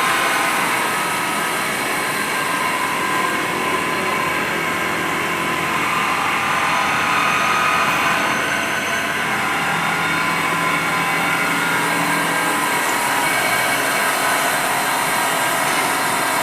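CNC milling machine running steadily: a continuous mechanical noise with several steady high tones, some shifting in pitch partway through.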